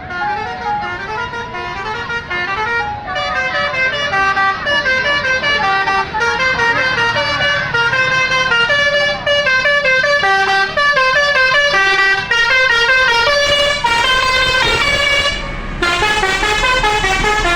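Al-Jabar bus's telolet basuri musical horn playing a tune: a run of bright horn notes stepping up and down a few times a second, with a short dip near the end.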